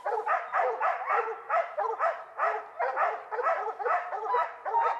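Dogs barking repeatedly, about three barks a second, at a mountain lion treed in a pine.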